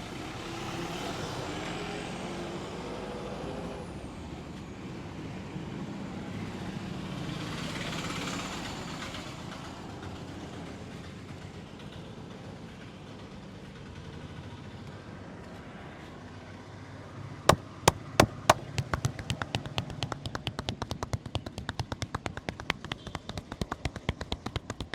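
Steady roadside traffic noise from passing trucks and vehicles. About three-quarters of the way through, a run of sharp, rapid slaps begins: a few loud single strokes, then a quick, dense patter, typical of the hand-slapping and cupped-hand tapping of a percussive massage.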